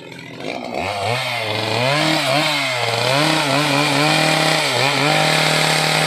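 Two-stroke chainsaw engine coming up about a second in, its pitch rising and falling unevenly for a few seconds as the throttle is worked, then holding steady at high revs.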